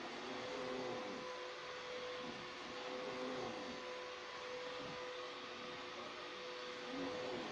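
Vacuum cleaner running: a steady hum over an even hiss, with slight wavering lower down.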